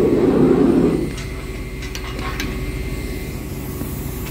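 Tanker truck's engine running steadily, with a short rushing noise in the first second and a few light clicks about two seconds in.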